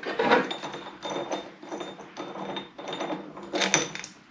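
Irregular metallic clinks, knocks and rubbing as a rubber V-belt and the steel drive pulley on a snowblower engine's crankshaft are worked by hand to get the drive belt to line up.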